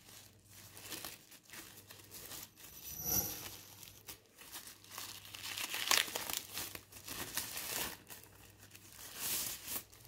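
Thin plastic bag crinkling and tearing as hands pull it off a speaker being unwrapped, in irregular crackles, loudest about three seconds in and again around six seconds.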